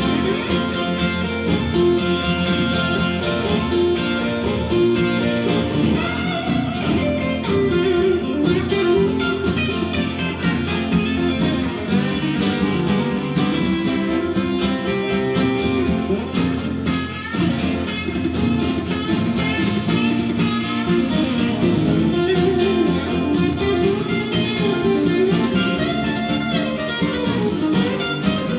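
Instrumental break of a blues-rock band song, with guitar to the fore over the band.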